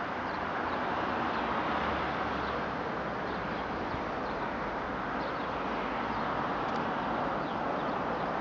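Steady outdoor ambience, an even hiss of wind or distant traffic, with faint short bird chirps now and then.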